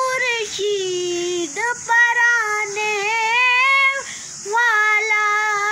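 A boy singing an Urdu naat unaccompanied in a high voice, holding long wavering notes, with a short breath about four seconds in.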